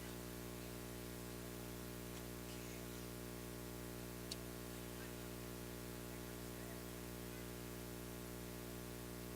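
Steady electrical hum with many even overtones, with a single faint click about four seconds in.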